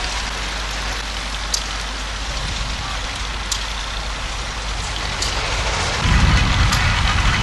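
Old engines running in a vehicle parade, heard as a steady low hum under a hiss, with a few sharp ticks. About six seconds in, a heavier engine rumble grows louder as an old army 4x4 truck drives up.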